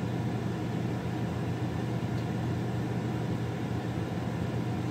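Newly installed Coleman Mach 15 rooftop RV air conditioner running on fan only: a steady rush of air with a low hum from the blower. The new unit is working.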